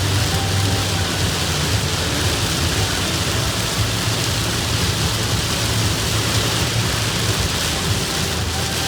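Heavy rain falling steadily in a hard downpour, an even hiss over a continuous low rumble.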